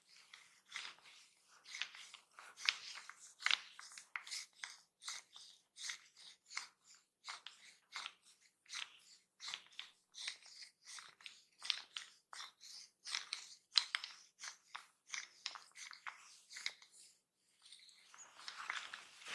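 A barber's hands rubbing and kneading during a close-miked massage: quick, short rustling strokes, two or three a second, with a longer rub near the end.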